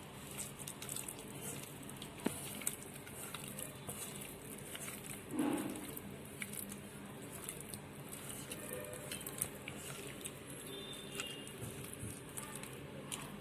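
Food being prepared in a kitchen: a faint, steady fine crackle with light handling noises, a sharp knock about two seconds in and a brief louder sound about five and a half seconds in.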